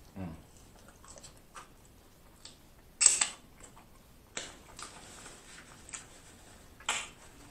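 A man chewing french fries close to the microphone: wet mouth smacks and chewing sounds at irregular moments, the loudest about three seconds in.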